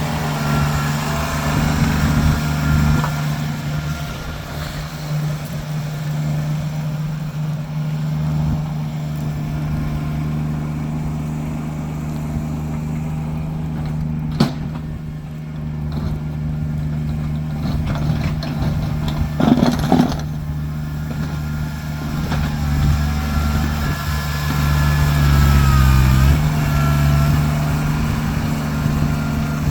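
Kubota tractor's diesel engine running steadily while plowing snow. Its engine speed dips and picks up again near the end. One sharp click comes about halfway through, and a short clatter follows a few seconds later.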